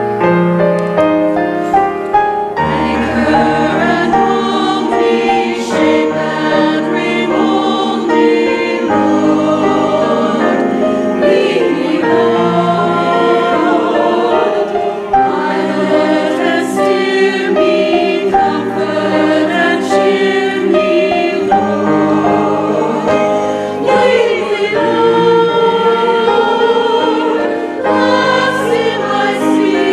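Choir singing a gospel hymn with instrumental accompaniment.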